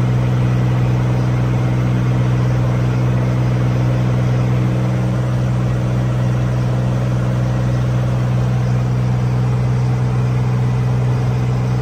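Cirrus SR22's six-cylinder piston engine and propeller droning steadily in flight, heard from inside the cabin: a constant low hum with even overtones that does not change.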